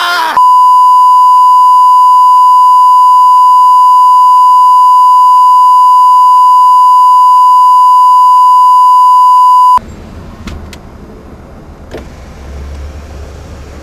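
A loud, steady electronic beep tone at a single pitch, held for about nine seconds and then cut off abruptly. After it comes the low, even rumble of a car's interior, with a few sharp clicks.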